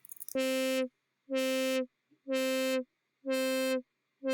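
A Massive software synthesizer patch sounding a steady, buzzy note that pulses on and off about once a second, in half-second blocks: an LFO assigned to its filter is opening and closing it.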